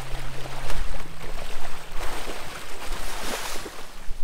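Shallow water splashing and churning as a released shark thrashes its tail and swims off.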